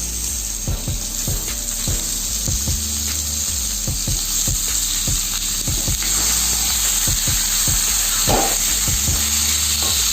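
Chicken pieces sizzling in hot oil with fried onions in a pan: a steady frying hiss with frequent short pops and clicks.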